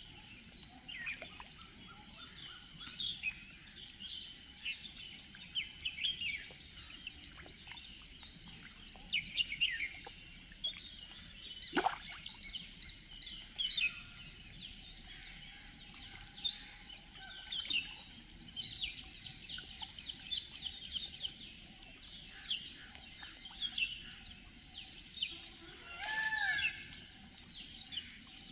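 Many small birds chirping and twittering in quick overlapping calls over a steady outdoor background hiss. There is one sharp click about halfway through, and a longer, lower bird call near the end.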